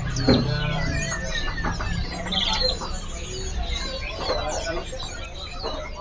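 Many small caged songbirds chirping and calling at once, short quick notes and trills overlapping one another, over a steady low hum.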